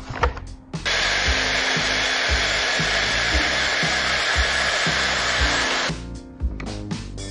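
A power tool runs steadily for about five seconds, starting about a second in and cutting off near the end. Background music with a steady beat plays under it.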